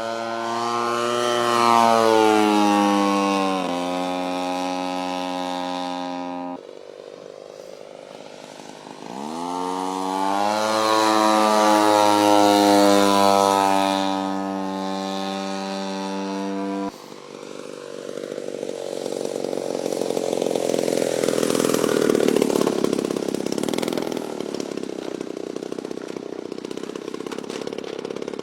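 Small two-stroke model-aircraft engine running at high revs: it climbs in pitch, holds, and drops back twice, each run cutting off abruptly, then runs on with a rougher, noisier sound through the last third.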